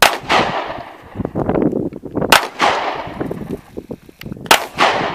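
Gunshots fired at a target: three shots about two seconds apart, each with a ringing tail that fades off.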